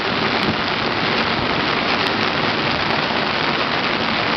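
Steady rush of rain in a thunderstorm on the open deck of a sailing yacht under way.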